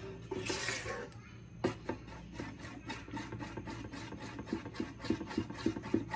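A metal spoon stirring thin batter in a round metal cake pan, scraping against the bottom and sides in quick, repeated strokes as freshly added water is mixed in.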